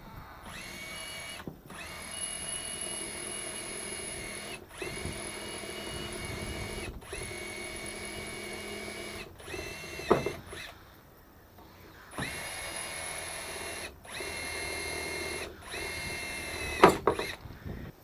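Handheld electric power tool, such as a drill, run in repeated bursts of one to three seconds with short pauses between, giving a steady high whine each time it runs. There is a sharper, louder noise twice, about ten seconds in and near the end.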